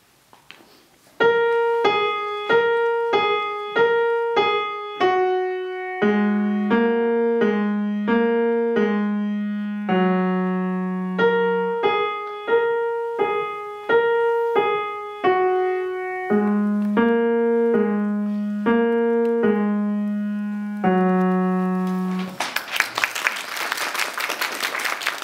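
A young beginner plays a short, simple tune on a grand piano in slow, evenly spaced notes, with a lower bass line joining about six seconds in. The piece ends about 22 seconds in, and the audience applauds.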